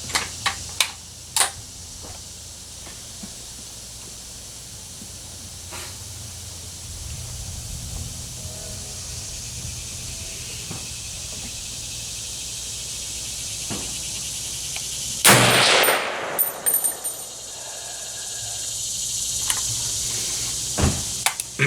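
A single loud shot from an M1A semi-automatic .308 rifle about fifteen seconds in, followed by a few lighter clicks. Several short sharp clicks come near the start, over a steady background hiss.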